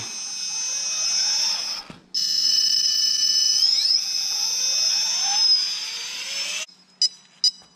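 Holmes Hobbies Revolver brushless motor, driven by a Castle Mamba X Micro ESC in an RC crawler, whining high under throttle. It drops out briefly about two seconds in, then rises in pitch again. It stops suddenly near the end, followed by a few short electronic beeps from the ESC as it powers up and counts the battery's cells.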